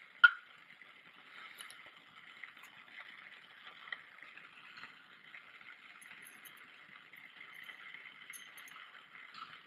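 Lit Bunsen burner hissing steadily, with one sharp click of lab glassware about a quarter second in and a fainter tick near the middle.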